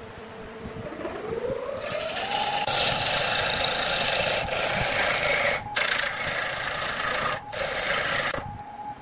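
Wood lathe motor rising in pitch as it comes up to speed, then a turning tool cutting into the spinning log with a loud, continuous scraping rush as the chips fly. The cut breaks off briefly twice and stops shortly before the end, leaving the lathe's hum.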